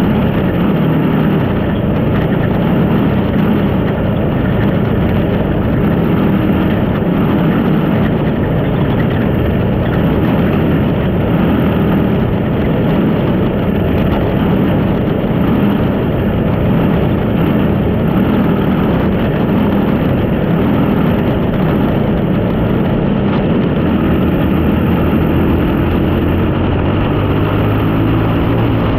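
Junior sprint car engine running steadily at low speed under caution, heard close up from onboard the car.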